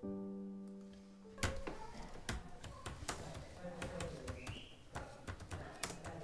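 A held musical chord fades out over the first second or so, then typewriter keys clack one after another at an uneven pace, a few strikes a second.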